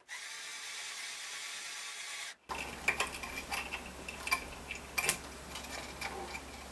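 Small handheld motorized string winder running steadily for about two seconds, then cutting off suddenly. After it, a series of light clicks and metallic clinks come about once or twice a second.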